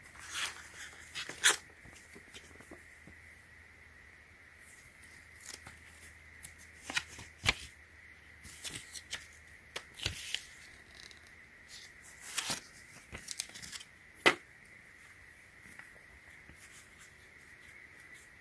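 Hands handling small items: scattered light clicks, taps and rustles, a few sharper knocks among them, over a faint steady high-pitched whine.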